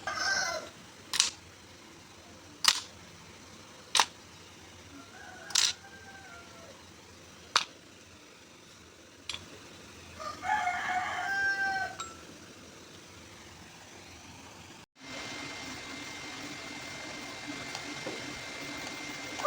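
Sharp single clicks every second or two, with a rooster crowing about ten seconds in. After a brief break there is a steady high-pitched whine over a low hum.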